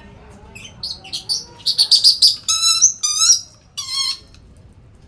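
A lory (nuri parrot) calling: a few short chirps, then a quick run of louder, longer calls from about one and a half seconds in, stopping a little after four seconds.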